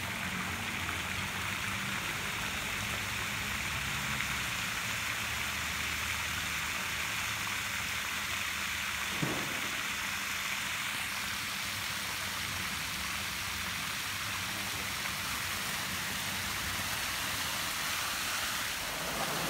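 A jet of water from a hose splashing onto wet paving and against plastic flood barrier panels: a steady hissing rush of spray, with one brief click about nine seconds in.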